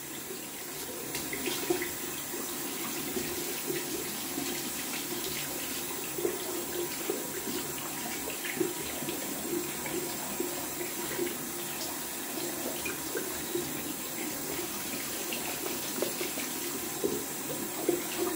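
Tap running into a bathroom sink while a synthetic-knot shaving brush is rinsed of leftover lather, with small irregular splashes over the steady flow.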